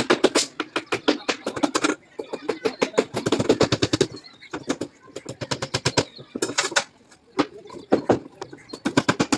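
Rapid clattering knocks, many each second, come in uneven runs, with people's voices in the background at times.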